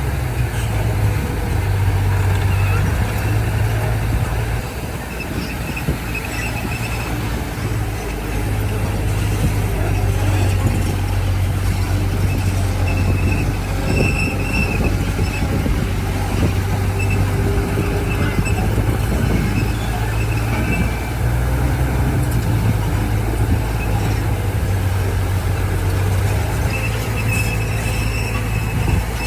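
Bulldozer's diesel engine running steadily with a deep hum. It is joined by intermittent high metallic squeals as the machine works.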